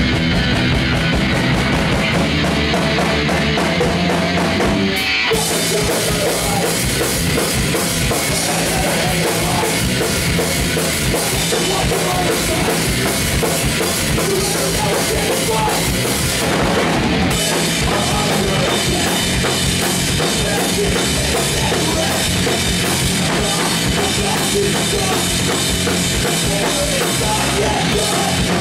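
Punk band playing live and loud: distorted electric guitars, bass and drum kit in a fast, continuous song. The sound gets fuller, with more cymbal, about five seconds in.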